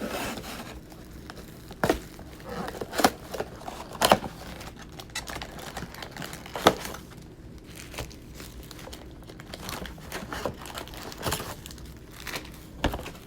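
Plastic wrap crinkling and a cardboard trading-card mega box being torn open and emptied, with scattered sharp taps and clicks as the card packs are handled.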